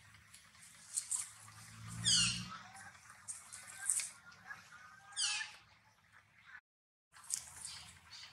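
A few short, high-pitched animal calls, each sliding downward in pitch, the loudest about two seconds in, over a faint outdoor background. The sound drops out completely for about half a second near the end.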